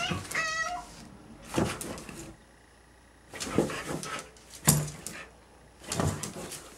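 Siberian husky's whining, talking vocalisation ending within the first second, then four short bursts of scuffling as the dog paws and pounces on its cushioned bed.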